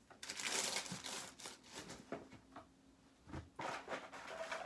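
Hands rummaging through a pile of stored items, making crinkling and rustling noises in two bouts, one in the first second and one near the end, with a soft thump in between.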